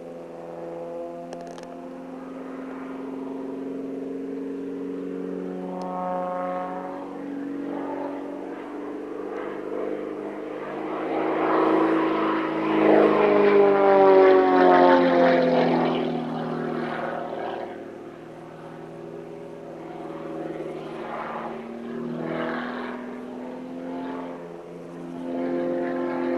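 Extra 300 aerobatic plane's piston engine and propeller, its note rising and falling as it manoeuvres. It is loudest in a close pass about halfway through, where the pitch drops as it goes by.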